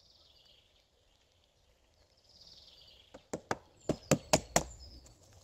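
About seven sharp chopping strokes of a hand-held blade biting into a green, leafy branch, coming in quick succession in the second half, the last few the loudest.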